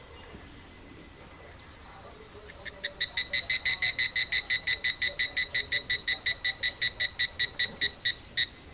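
A rapid series of short, sharp chirping calls, about eight a second, starting about two and a half seconds in and slowing slightly near the end.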